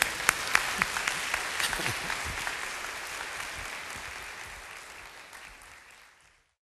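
A congregation applauding at the end of a skit: dense clapping that gradually fades out and is gone shortly before the end.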